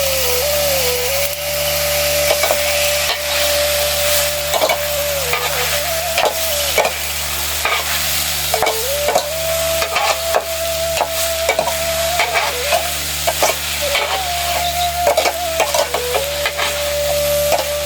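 Food sizzling as it fries in a pan, stirred with a spoon that clicks and scrapes against the pan many times.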